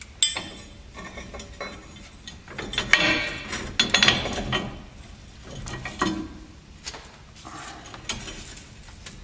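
Irregular metallic clinks and rattles of steel washers, nuts and U-bolt hardware being handled and fitted on a truck's leaf spring mount, busiest about three to four seconds in.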